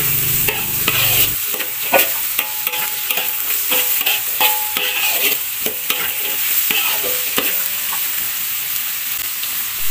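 Matchstick-cut carrots and scrambled egg sizzling in a hot metal wok while a metal spatula stirs them, with frequent quick clicks and scrapes of the spatula against the pan.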